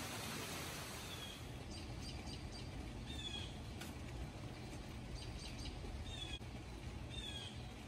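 Steady hiss of rain, with a small bird chirping over it from about a second in: about four short falling chirps between quick twittering notes.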